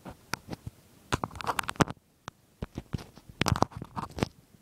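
Handling noise from an iPod touch being turned by hand: clicks, taps and scraping of fingers on the device, in two bursts about a second long with a few single clicks between.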